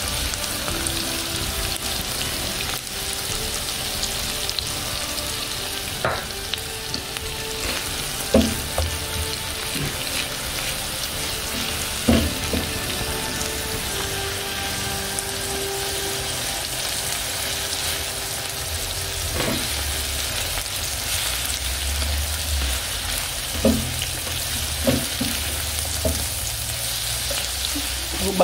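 Chopped onion, leek, spring onion, green pepper, garlic and ginger sizzling steadily as they fry in oil in a pan. A handful of short knocks come from the spatula stirring against the pan.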